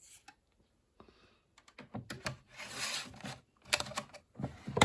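Hard plastic parts of a washing machine being handled: scattered sharp clicks and rattles, with a rasping slide of about a second in the middle and a quick run of clicks near the end.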